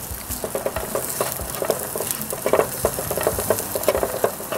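Chopped garlic and ginger sizzling in hot oil in a nonstick frying pan, with a plastic slotted spatula scraping and tapping against the pan in irregular strokes as it stirs them.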